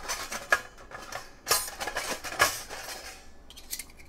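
Thin stainless-steel parts of a folding backpacking wood stove clinking and scraping as the pot-stand bars are pulled out of it: several sharp, ringing metal clinks in the first three seconds, then only faint handling.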